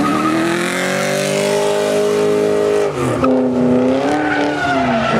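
Car engine revving hard while the tyres spin and squeal in a burnout. The engine note climbs steadily for about three seconds, drops sharply, then rises and falls as the throttle is worked.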